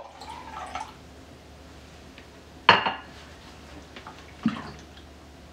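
The last of a water pour into a glass fades right at the start. Then comes a sharp knock about two and a half seconds in and a softer thump about four and a half seconds in, as the glass and the plastic water jug are handled on a stone countertop.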